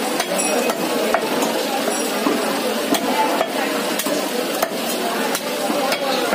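A heavy butcher's knife knocks on a wooden log chopping block, giving roughly ten sharp, irregularly spaced knocks. Under them runs a steady background din.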